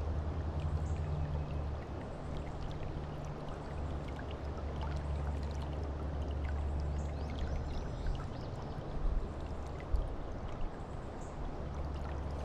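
River water running and trickling over a steady low rumble, with a few short knocks about nine and ten seconds in.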